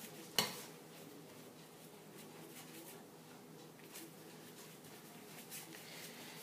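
A single short knock about half a second in, then faint, soft scuffing of a paintbrush dabbing paint over a printing surface.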